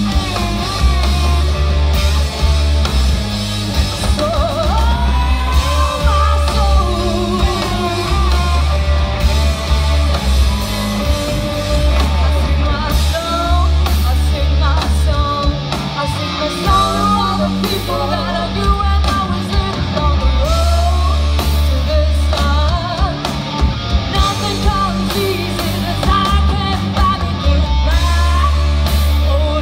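Live hard rock band playing: a woman sings and belts over distorted electric guitars and drums, with heavy sustained low notes underneath.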